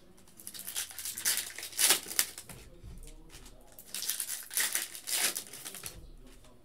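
Foil trading-card pack wrappers crinkling and tearing as they are pulled open by hand, in several crackly bursts with short lulls between.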